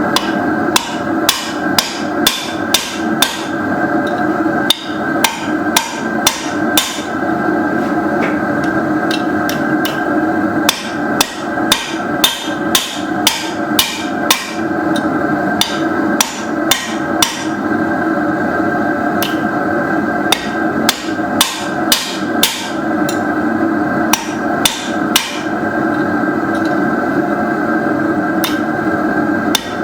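Blacksmith's hammer striking steel on an anvil during forging, about two blows a second in runs with brief pauses. A steady hum runs underneath.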